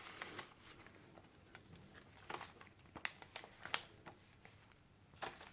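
Faint rustling and a few short paper ticks as the pages, tags and cards of a handmade paper journal are handled and turned.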